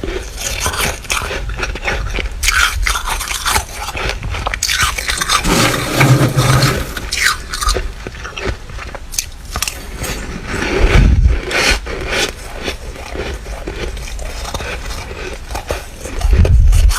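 Close-up biting and chewing of flaky, squeaky freezer frost: dense crackling crunches and scrapes throughout, with a few deeper low bumps.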